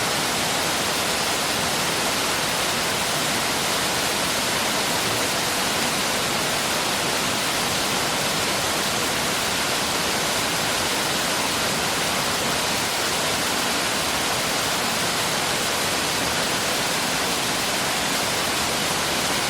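Mountain stream rushing in a steady, unbroken wash of water noise.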